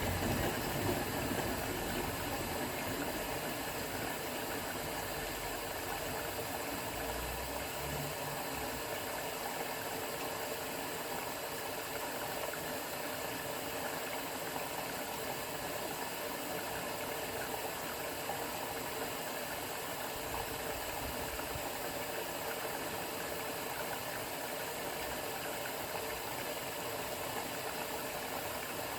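A 1990s AEG Öko_Lavamat 693 front-loading washing machine running through a 60 °C wash: a steady mechanical hum with noise and water sounds, a little louder in the first couple of seconds.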